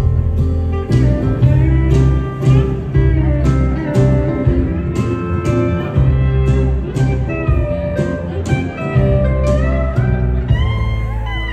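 Live country band instrumental break: a pedal steel guitar plays a solo of sliding, bending notes over acoustic guitar and brushed drums keeping a steady beat.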